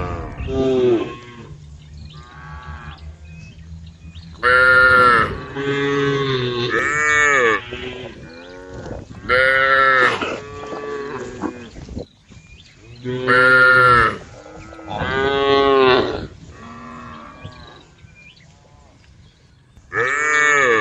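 A herd of cows mooing: loud, drawn-out calls every few seconds, with fainter calls from other animals in between.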